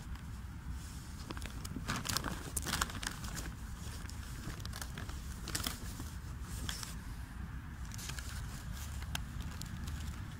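Paper gift bag rustling and crinkling as it is carried and handled, in scattered short crackles over a low steady rumble.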